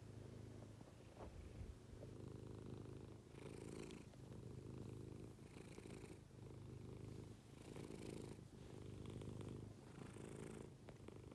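Tabby-and-white domestic cat purring quietly and steadily while its head is scratched, a contented purr. The purr swells and eases with each breath, about every two seconds.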